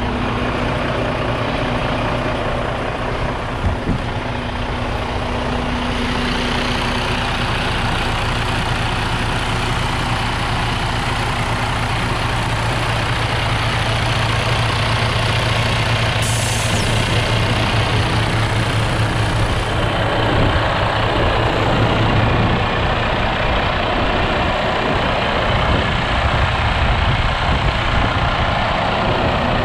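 Detroit Diesel DD15 14.8-litre six-cylinder diesel in a 2014 Freightliner Cascadia idling steadily, heard with the hood open. There are a couple of short knocks about four seconds in.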